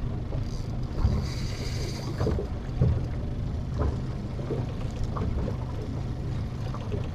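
Boat's outboard motor idling with a steady low rumble, with a brief higher whirr about a second in.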